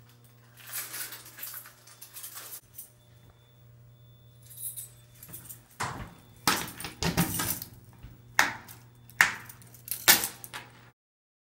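A ring of keys jangling and clinking in several bursts as a key is worked in an elevator's in-cab fire operation key switch, over a steady low hum. The sound cuts off suddenly near the end.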